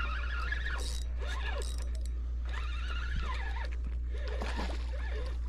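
Birds calling in a run of short cries that rise and fall in pitch, over a steady low rumble.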